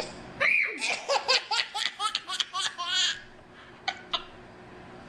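Baby laughing in a quick string of short laughs for about three seconds, then falling quiet with one more short laugh near the end.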